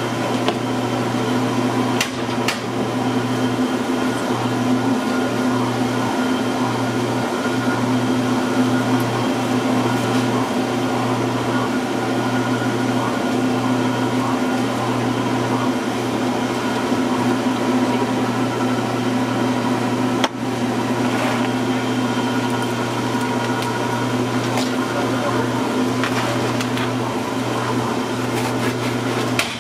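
Steady mechanical hum of kitchen machinery, several steady tones that do not change. A few brief clicks and knocks from work at the counter are heard over it.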